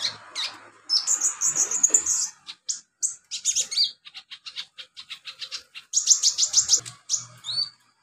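Sunbird (konin) singing: a fast, high-pitched song of rapid chirping trills, with a run of quick ticking notes in the middle.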